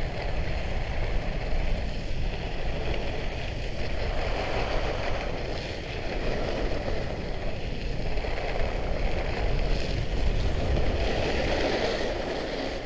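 Trikke Skki's carving blades scraping over very cold, noisy snow during a run downhill, with wind on the microphone; the scraping rises and falls every few seconds.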